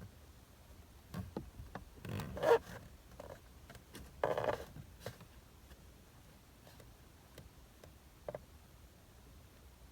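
Screwdriver scraping and clicking inside the back of a steering wheel as it probes for the airbag's retaining spring clip. Two louder scrapes come about two and four and a half seconds in, with small scattered clicks between.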